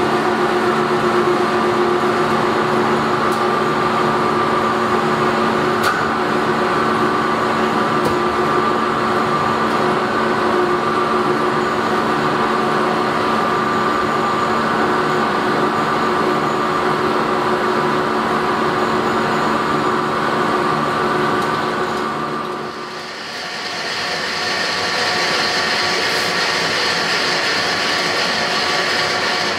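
Electric ring die pellet mill running after start-up, a steady mechanical hum with a whine over it. About 23 s in the sound dips briefly and gives way to a different steady machine noise with a higher hiss.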